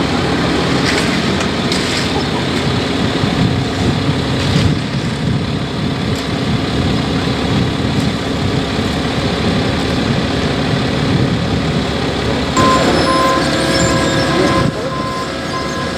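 Diesel engines of asphalt paving machinery running steadily. About three-quarters of the way in, a reversing alarm starts beeping steadily.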